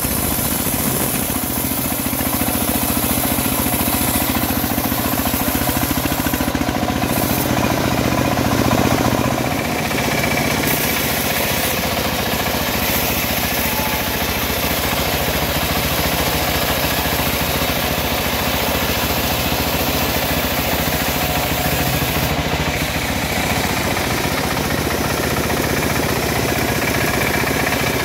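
Engine-driven homemade band sawmill running steadily with a rapid pulsing beat as its band blade saws lengthwise through a teak log; the low pitch of the running changes about ten seconds in.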